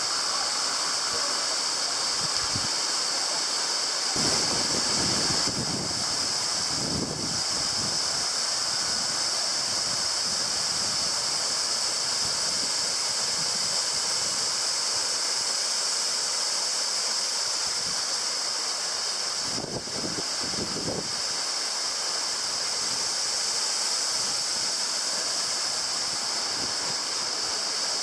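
Waterfall and falling water rushing over rock: a steady hissing rush, with brief low rumbles about four seconds in and again near twenty seconds.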